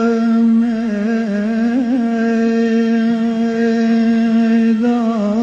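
A man singing one long held note in Persian, drawn out on a vowel, its pitch turning in small ornaments and dipping briefly near the end, with little or no audible accompaniment.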